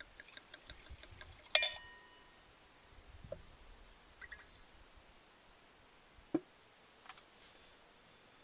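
Glassware clinking once, sharply, with a short bright ring that fades over about half a second, among small clicks and a few soft knocks of glass and bottle being handled.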